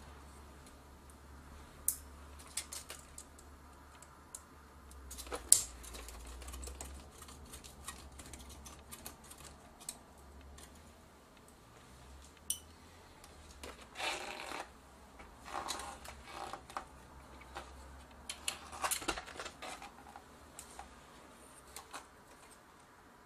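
Small clicks, taps and rattles of the partly stripped camcorder's metal chassis, boards and screws being worked by hand, the sharpest click about five and a half seconds in and a busier run of clicks in the second half, over a faint low hum.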